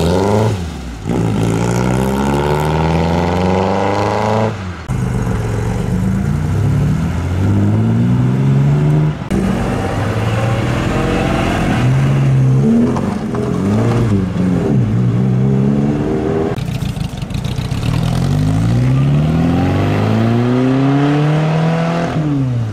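A series of classic cars accelerating hard away from a junction, one after another, in separate cut-together passes, among them a Porsche 911 Turbo and an open hot rod. In each pass the engine note climbs and drops back at each gear change.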